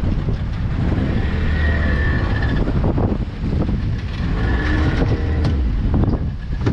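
Fishing boat's engine running with a steady low rumble, wind buffeting the microphone. Two brief high squeaks sound about two and five seconds in, and a few sharp knocks come near the end.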